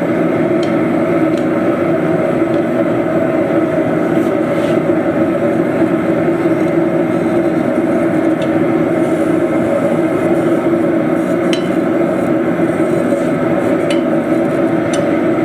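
Forge running with a steady roar, with a few faint clicks.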